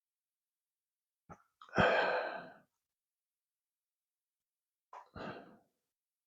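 A man's two short sighs, a louder one about two seconds in and a quieter one near five seconds.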